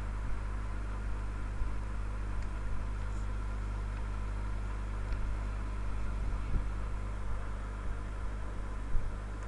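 Steady low hum with faint hiss, unchanging throughout, with a few faint clicks later on.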